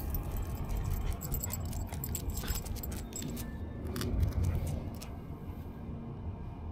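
Metal tags on a corgi's harness jingling and clicking lightly in irregular little bursts as the dog moves, over a low rumble.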